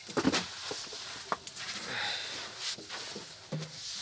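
A long thin wooden rolling pin (oklava) rolling out a sheet of yufka dough on a round wooden board: a rubbing swish broken by a few sharp wooden knocks.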